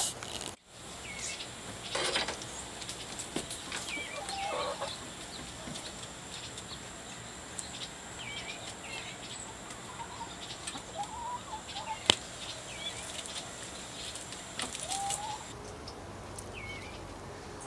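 Backyard chickens clucking now and then, among scattered higher chirping calls, over a faint steady high whine. One sharp click about twelve seconds in.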